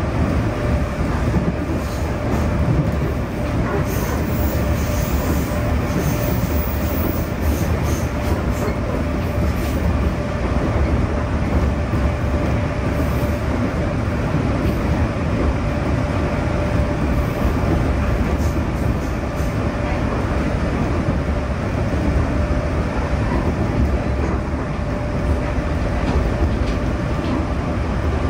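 JR East 211 series electric train heard from inside the passenger car while running: a steady, even rumble of wheels on rail and running gear, with a thin steady tone running through it.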